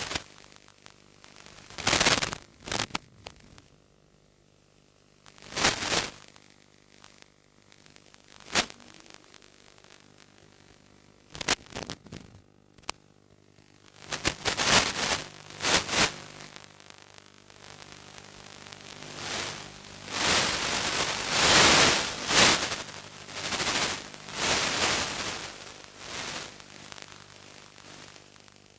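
Radio static from an analog 5.8 GHz FPV video link: short sudden bursts of crackling hiss in the first half, then longer swelling stretches of hiss in the second half over a faint steady hum. The static comes in as the link's signal breaks up.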